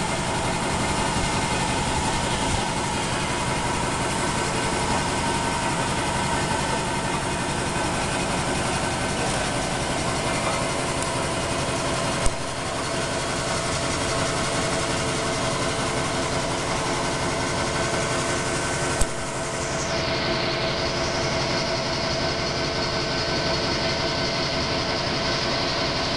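DX4080 end face milling machine running steadily, its cutter facing the end of a welded steel box beam: a dense, even machining noise with steady tones. There are two sharp clicks, about 12 and 19 seconds in.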